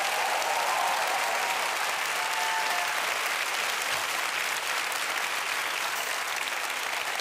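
Large studio audience applauding steadily, with a few voices calling out in the first three seconds.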